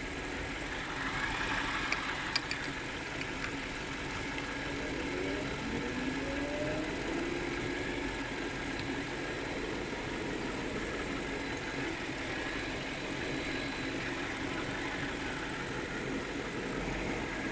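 BMW V8 engine idling steadily, running smoothly with no misfire or shaking.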